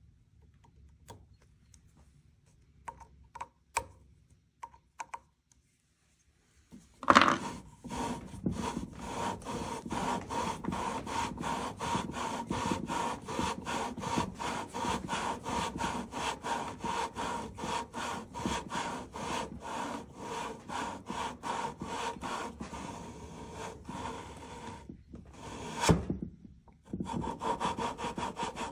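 A lapping bar worked back and forth through scope rings coated with lapping compound, grinding the ring surfaces into alignment. After a few light clicks, rapid rhythmic gritty rubbing of about three strokes a second starts about seven seconds in. It stops briefly near the end, with one louder scrape before the strokes resume.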